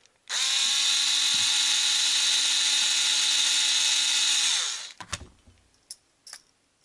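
Small electric screwdriver running at a steady whine for about four seconds as it backs out a screw from a nitro engine's pull-start housing, then winding down. A few light clicks follow.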